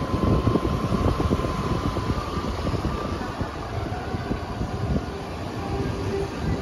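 Motorcycle running at low speed along a street, a steady vehicle noise with wind rumbling on the microphone.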